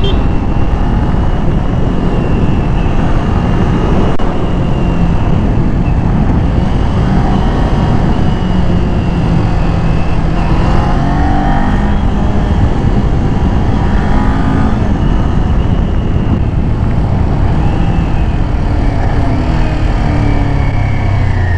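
Kawasaki Z400's 399 cc parallel-twin engine running through its stock muffler while under way, its pitch rising and falling with the throttle through the bends, over wind rush on the rider's microphone.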